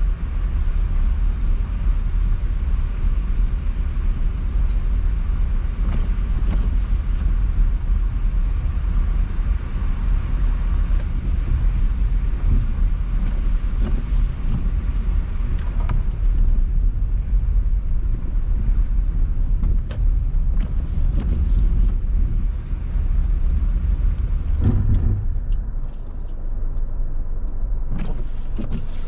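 A car driving, a steady low rumble of tyres and engine on the road with a few light clicks. The higher hiss thins out about 25 seconds in.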